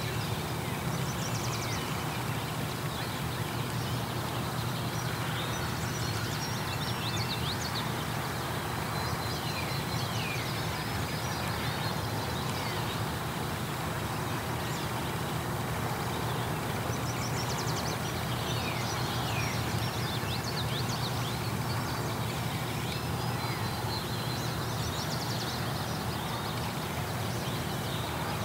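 Songbirds singing short, repeated whistled phrases, several each few seconds, over a steady low rumble.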